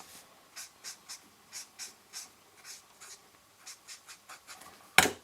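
Alcohol marker nib scratching across cardstock in short colouring strokes, two or three a second, followed by one sharp click near the end.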